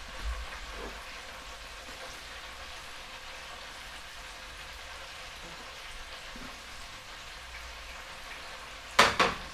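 Breaded chicken deep-frying in an electric deep fryer, the oil sizzling with a steady hiss. A brief, loud knock comes near the end.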